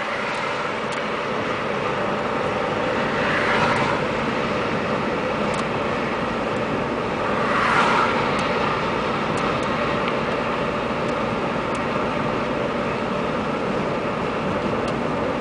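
Steady road and engine noise inside a moving car's cabin, a constant rush with two brief swells, the first a few seconds in and the second about halfway.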